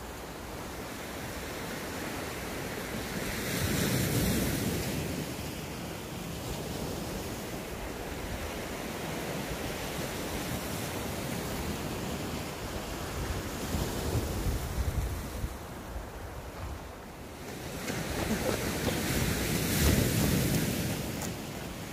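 Sea waves washing and breaking along the shore, surging loudest about four seconds in and again near the end, with wind buffeting the microphone.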